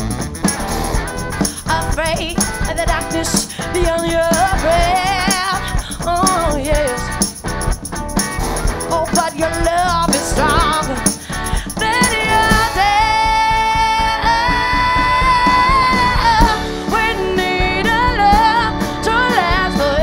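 Live soul-rock band playing: drums, electric guitar and saxophone, with singing over them. In the second half, long held notes ring out over the band.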